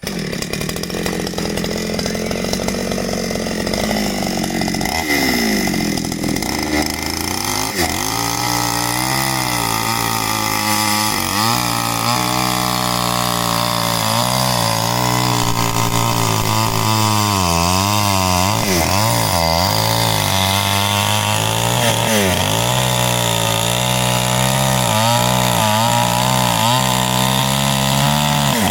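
Two-stroke chainsaw running hard and cutting into jackfruit wood, starting abruptly and running without a break, its engine speed dipping and recovering again and again as the chain loads up in the cut.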